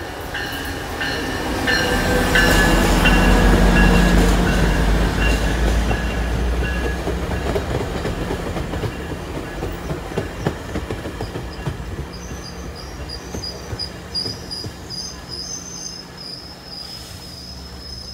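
Northstar commuter train passing at speed. Its MP36PH-3C diesel locomotive's low engine rumble is loudest a few seconds in. Then the bilevel coaches go by with a run of sharp wheel clicks and a thin high wheel squeal in the second half, fading as the train moves away.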